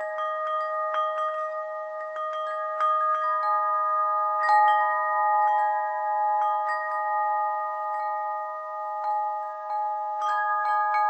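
Metal chimes ringing at several pitches, struck at irregular moments about once a second, each note sustaining long so that the tones overlap. The loudest strike comes about four and a half seconds in.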